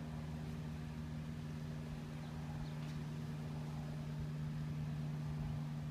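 Cessna 182 single-engine propeller plane flying overhead, a steady low drone with no change in pitch or loudness.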